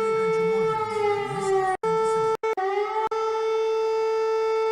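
Recording of Lithuania's civil defense alarm: one steady siren tone that sags in pitch about a second in, breaks off suddenly twice near the middle, then holds steady again.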